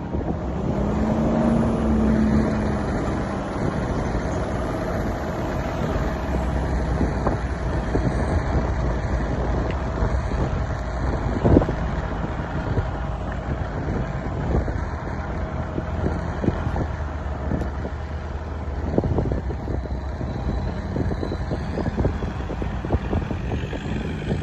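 Off-road SUV engine running steadily on a hill climb, with scattered knocks and one sharp knock about halfway through.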